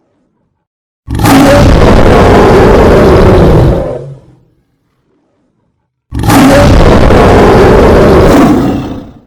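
Lion roaring twice, each roar lasting about three seconds, with a pause between. The two roars look like the same recording played twice.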